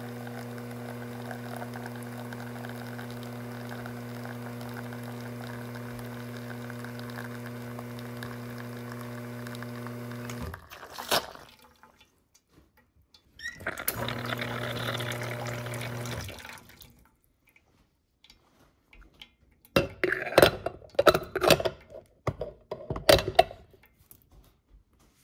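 Rocket espresso machine's pump humming steadily as the espresso shot pulls, cutting off with a click about ten seconds in when the shot is stopped. The pump runs again for about three seconds. Then a run of sharp metal clicks and clanks comes as the portafilter is unlocked from the group head.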